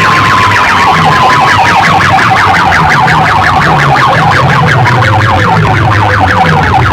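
Loud PA sound system playing an electronic siren-like alarm effect: a fast, evenly repeating pulse over a wavering tone, with a repeating bass pattern underneath.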